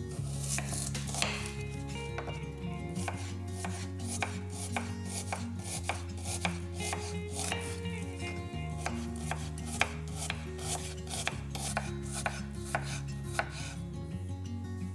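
Onion being chopped with a ceramic knife on a wooden cutting board: a long run of crisp knife strokes knocking the board, at roughly two to three a second, over background music.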